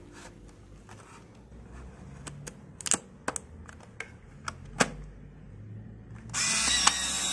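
Plastic clicks and knocks as an i-Type film pack is seated in a Polaroid Now+ Gen 2 instant camera and the film door is shut. Near the end the camera's motor starts whirring, ejecting the dark slide from the freshly loaded pack.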